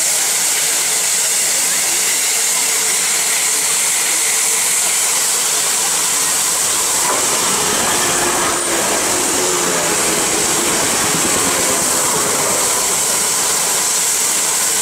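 Safety valves of the rebuilt Bulleid light Pacific 34046 Braunton blowing off with a loud, steady hiss while the locomotive stands in the station. About seven seconds in, a Grand Central passenger train passes on the adjacent line and adds its rumble under the hiss for several seconds.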